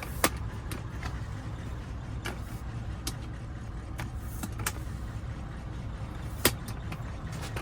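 Scattered light clicks of a small plastic key fob and its coin battery being handled and fitted, about six over several seconds, over a steady low hum.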